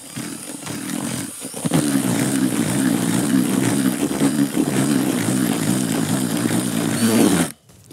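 Cordless drill with a whisk attachment running, stirring groundbait in a plastic bucket as the first small amount of water is worked in. It runs steadily, slackens briefly about a second and a half in, then stops abruptly near the end.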